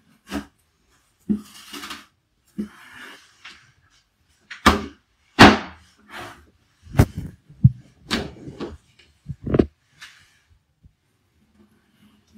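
A large knife cutting through raw tuna fillet and striking a wooden cutting board: a dozen or so irregular knocks, the loudest about five seconds in, with wet scraping of the blade through the flesh between them.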